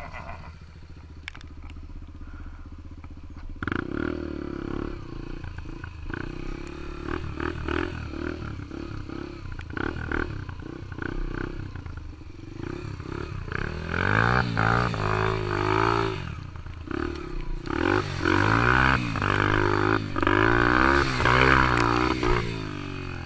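Yamaha TT-R125 dirt bike's single-cylinder four-stroke engine running, starting about four seconds in. Its revs rise and fall again and again, and it gets louder in the second half.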